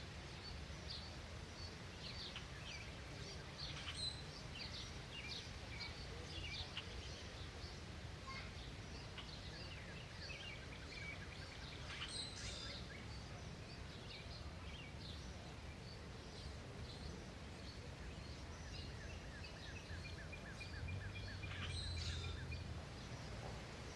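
Several wild birds chirping and calling, with many short high notes throughout and a quick run of repeated notes near the end, over a steady low background rumble.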